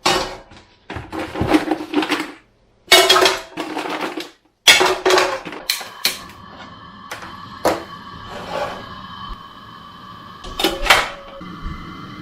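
Green-lipped mussel shells clattering against each other and a metal pot in several short bursts, broken by abrupt cuts. In the second half a faint steady tone runs under a few more knocks.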